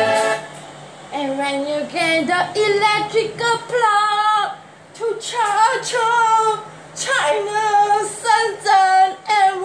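A woman singing unaccompanied in short phrases, with brief pauses between them; a music track cuts off just as the singing begins.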